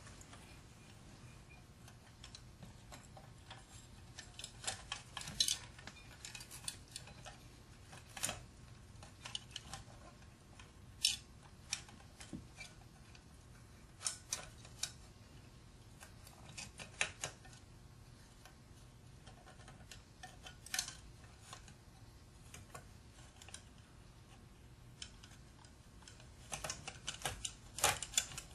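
Irregular light metallic clicks and clinks as the Franklin motor's steel case and end bell are fitted back together by hand and turned on their through-bolts, in scattered clusters over a faint steady hum.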